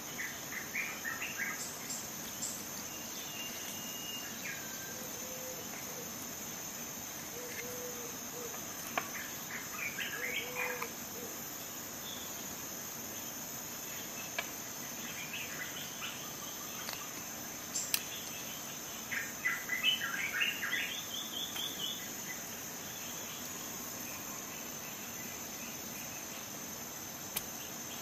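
Small metal tools of a Swiss Army knife clicking and scraping as they are handled, in short squeaky clusters with a few sharp clicks, the busiest about two-thirds through. A steady high-pitched whine runs under everything.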